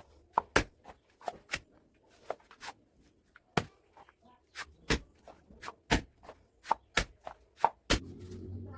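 A tool chopping or knocking on a hard surface: a series of sharp, irregularly spaced strikes, roughly two a second. Near the end a steadier low rumbling noise comes in.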